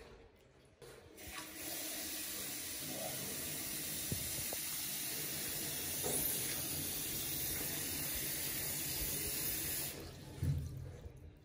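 Water running steadily in a continuous rush, starting about a second in and stopping near the end, followed by a short low thump.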